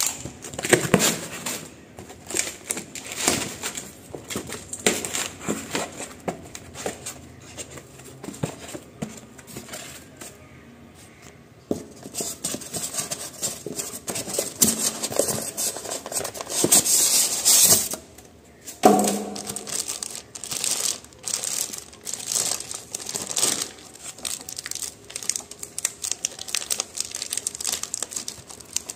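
Unpacking noise: a clear plastic packing bag crinkling and rustling as hands pull it about, along with cardboard box flaps and tape being opened, in irregular crackles and tearing sounds. A louder stretch of crinkling comes about two-thirds of the way in.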